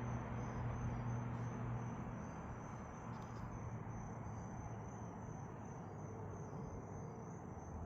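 Crickets trilling steadily in a high, evenly pulsing tone over a broad steady outdoor rush. A low hum fades out about two seconds in.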